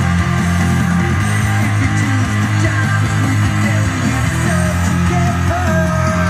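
Background music: guitar-driven rock with held low bass notes, playing steadily.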